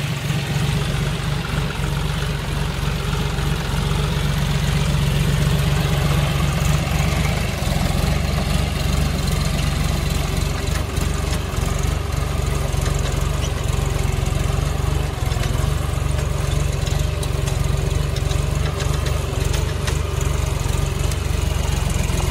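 John Deere 5105 tractor's three-cylinder diesel engine running steadily under load while pulling a plough through the soil.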